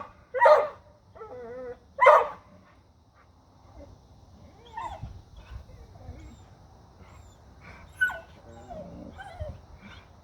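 Dogs barking: three loud barks in the first two seconds with a wavering, high whine between them, then quieter, scattered whimpers and yips.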